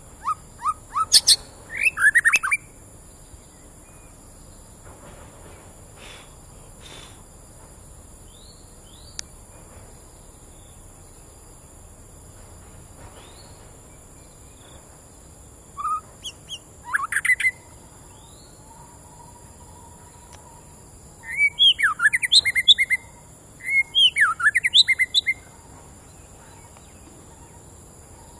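White-rumped shama singing in short bouts of quick, varied whistled phrases: one bout at the start, then after a long pause three more in the second half. The bird is just over a year old and its owner judges it not on form. A steady high-pitched insect drone runs underneath.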